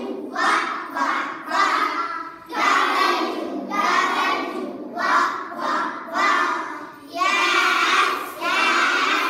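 A class of young children singing a letter-sounds song together in unison, in short phrases with brief gaps between them.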